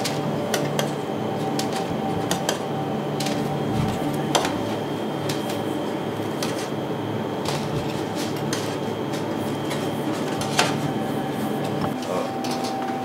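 Commercial kitchen background: a steady machine hum with scattered light clicks and knocks of utensils and dishes.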